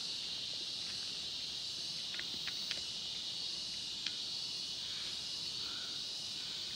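Steady high-pitched drone of a rainforest insect chorus, with a few faint ticks between about two and four seconds in.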